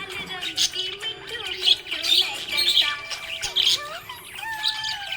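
Budgerigars chirping and squawking in quick, busy bursts over background music.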